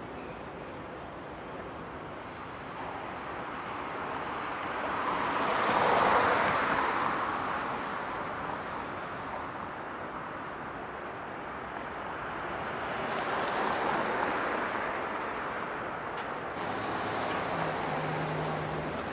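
Road traffic going past: three vehicles in turn, each swelling up and fading away, the first about six seconds in and the loudest, over a steady hum of outdoor noise.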